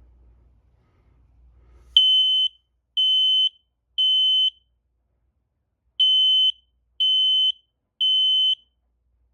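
Smoke alarm sounding its test signal: two rounds of three loud, high-pitched beeps, each about half a second long, beginning about two seconds in. This is the temporal-three evacuation pattern, showing that the alarm works.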